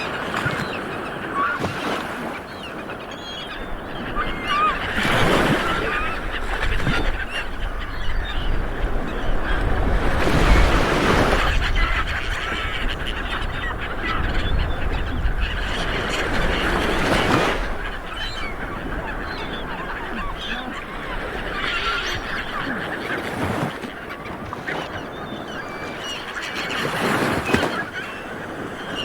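Light waves breaking on a beach, swelling up every several seconds, with many birds calling over the surf throughout.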